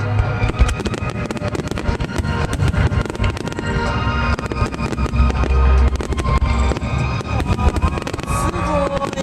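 Fireworks going off in rapid, repeated sharp cracks and bangs, heard along with loud music with plucked-string and sustained melodic parts.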